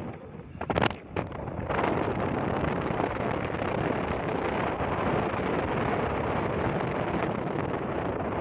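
Wind rushing over a phone microphone carried on a moving vehicle, steady throughout except for a few sharp knocks about a second in.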